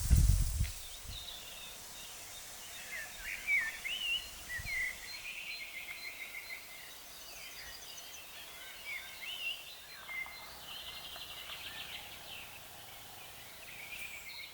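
Songbirds chirping and trilling, several short calls and rapid trills overlapping, over a faint steady background hiss. A single low thump comes at the very start.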